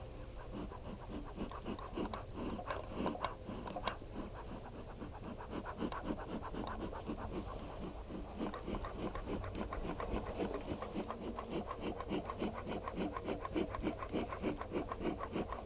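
Bee smoker bellows squeezed over and over, about three puffs of air a second. The smoker's straw fuel is damp, so it is giving only weak smoke.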